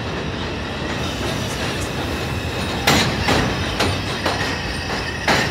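R142 subway train running along elevated track: a steady rumble, then from about three seconds in the wheels clack over rail joints roughly twice a second.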